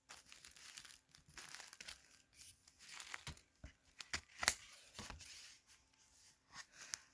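Pages of a picture book being handled and turned: a string of soft, irregular paper rustles with a few sharper taps, the loudest about four and a half seconds in.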